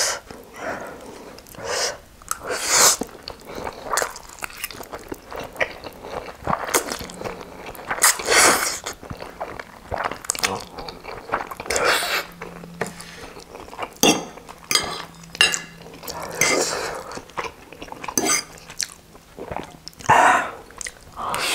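Close-miked slurping and wet chewing of spicy instant noodles, in short bursts every few seconds.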